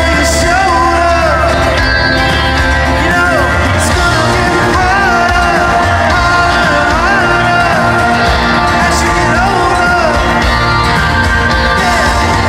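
A live rock band playing a slow progressive-rock piece in an arena. A lead melody bends and wavers in pitch over sustained bass notes.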